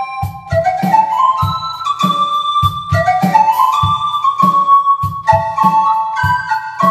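Roland D-50 synthesizer playing a flute patch: a legato melody with notes that slide up into pitch, over a steady drum and bass beat at about two beats a second.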